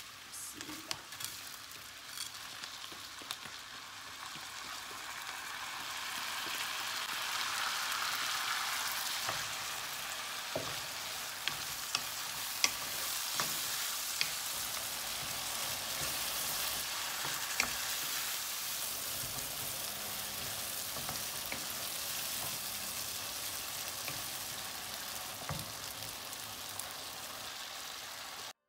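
Washed rice and almonds sizzling in hot oil and butter in a coated frying pan as the rice is toasted for pilaf, stirred with a wooden spoon that clicks now and then against the pan. The sizzle swells a few seconds in and holds steady, then breaks off abruptly just before the end.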